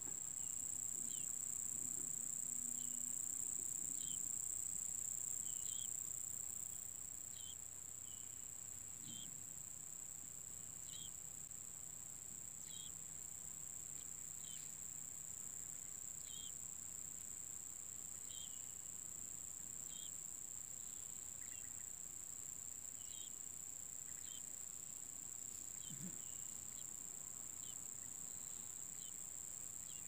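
A steady, high-pitched insect trill, louder for the first six seconds or so. Over it come short, thin chirps about once a second.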